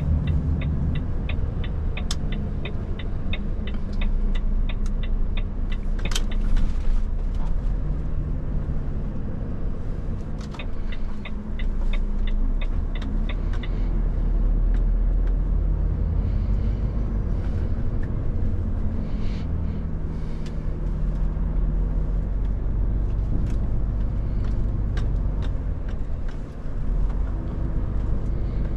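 Volvo FH540 truck's 13-litre straight-six diesel running, heard from inside the cab as a steady low engine and road rumble. A rapid, regular indicator tick runs for about five seconds near the start and again for about three seconds some ten seconds in.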